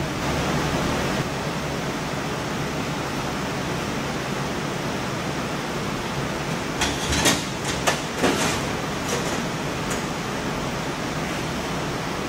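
Steady, even background noise, with a short run of sharp knocks and clanks about seven to eight and a half seconds in.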